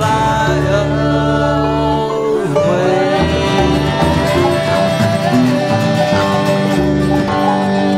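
Bluegrass band playing an instrumental passage between sung lines, with fiddle, mandolin, banjo, acoustic guitars and upright bass; a held chord in the first two seconds gives way to picked notes over a steady bass.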